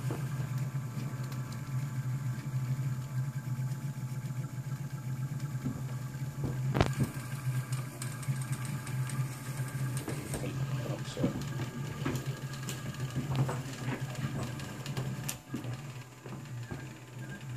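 Homemade 3D printer running a print: its stepper motors hum and whir steadily, with a few sharp clicks, one about seven seconds in. The sound gets a little quieter near the end.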